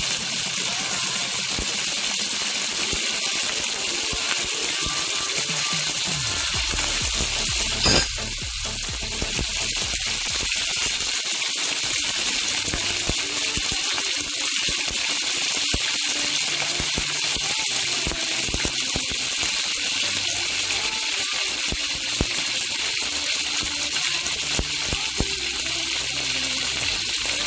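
Chicken wings frying in hot oil in a wok, a steady sizzling hiss. A single sharp knock comes about eight seconds in.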